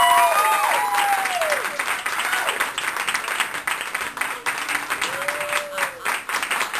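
Audience applauding and cheering, with high whoops in the first second or so and another about five seconds in; the clapping slowly thins out.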